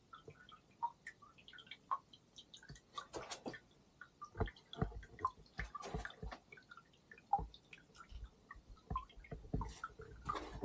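Water dripping and trickling in a stone well and its channel: scattered irregular plinks at different pitches, with a few soft low thuds.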